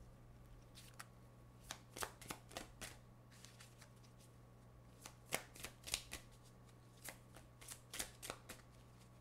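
A deck of oracle cards being shuffled by hand: faint flurries of quick card clicks and snaps, coming in several bursts with short pauses between them.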